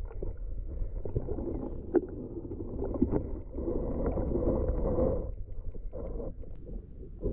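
Muffled underwater sound picked up through a submerged camera's housing: a steady low rumble of moving water, with a couple of sharp knocks about two and three seconds in.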